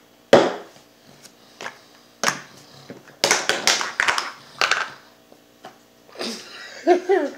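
Vaping gear handled on a tabletop: a string of sharp clicks and knocks as e-liquid bottles, caps and atomizers are picked up, tapped and set down, most of them bunched together in the middle. Near the end, a short murmur of a voice.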